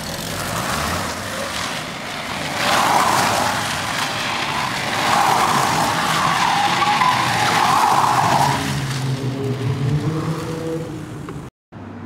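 Small hatchback driven in tight circles on asphalt, its tyres squealing and scrubbing, loudest from about three to nine seconds in. Toward the end the car's engine note comes through more plainly.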